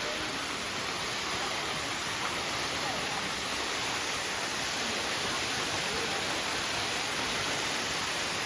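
Waterfall and creek water rushing: a steady, even roar of falling water.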